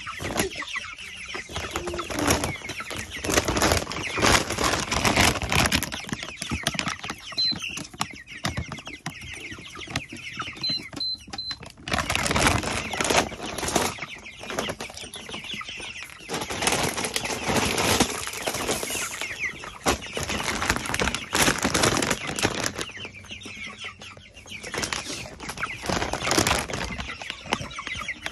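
A flock of young broiler chickens flapping their wings and scratching in straw bedding, with some clucking and a few short high chirps, in irregular bouts of rustling throughout.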